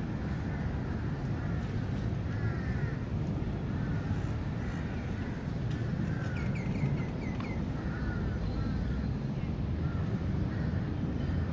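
Birds calling in short, repeated arched notes, singly and in pairs, with a quick run of about five higher notes midway, over a steady low rumble.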